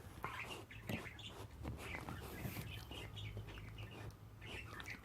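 Faint, high, short chirps and squeaks from small animals, repeated irregularly over a low steady hum.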